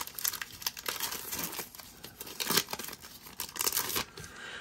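Trading-card pack wrapper being torn open and crinkled by hand as the cards are pulled out, a dense crackling that dies down about four seconds in.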